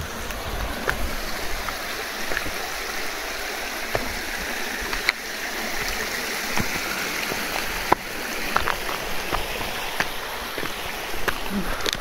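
Mountain stream flowing steadily with a continuous rushing sound, with a scattering of short sharp clicks and knocks on top.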